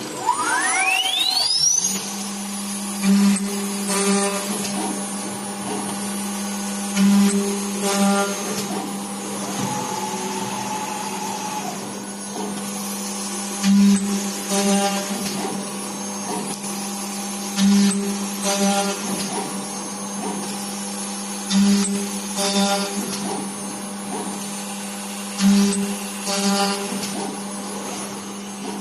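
Spindle of a 3-axis CNC machining center for aluminium curtain wall profiles spinning up with a rising whine in the first two seconds, then running at a steady hum. Louder cutting noises come in pairs about every four seconds as the tool works a row of features into the profile.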